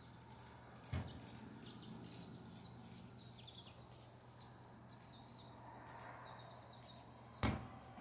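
Faint outdoor background with a steady low hum and small birds chirping high and thin through most of it. Two sharp knocks sound, one about a second in and a louder one near the end.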